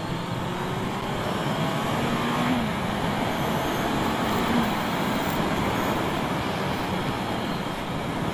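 Honda CBR650F inline-four engine pulling hard under heavy wind noise on the microphone, its pitch climbing over the first few seconds as the bike accelerates.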